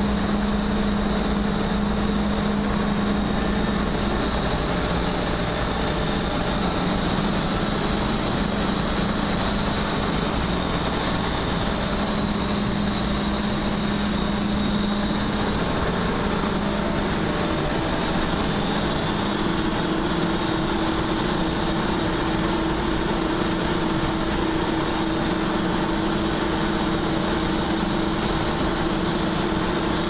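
Steady, continuous noise of a running asphalt plant's machinery, with a steady hum that gives way to a higher one about two-thirds of the way through.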